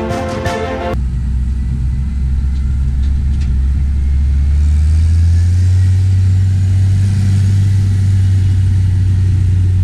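Farm tractor's diesel engine running close by, its low drone rising in pitch and level about halfway through as it picks up revs and pulls away, then holding steady.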